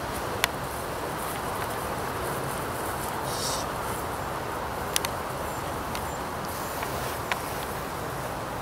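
Steady outdoor background hiss, broken by sharp clicks: one just after the start, a quick double a little past the middle, and one more later.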